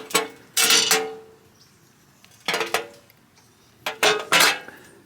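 Pliers cutting through the tabs of a microwave oven's stamped sheet-metal bottom plate: sharp metallic snaps and clanks with a brief ring, in three clusters about a second and a half apart.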